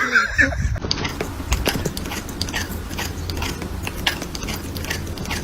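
Close-up crunching, a few irregular crunches a second over a low steady hum, like an animal chewing something hard.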